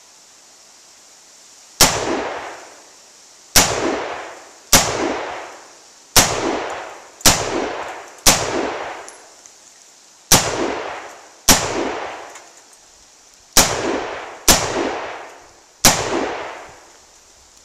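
Daniel Defense DDM4 AR-15 rifle fired in semi-automatic, eleven single shots at uneven intervals of one to two seconds. Each shot is followed by an echo that fades over about a second.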